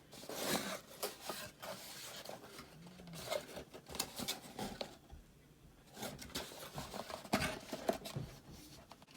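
A package being opened by hand: irregular rustling, scraping and tearing of the packaging, with a short lull about five seconds in.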